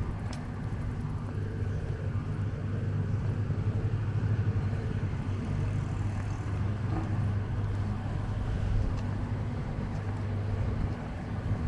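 Outdoor street ambience dominated by a steady low engine drone, like a vehicle or machine running, with a faint hiss of background noise.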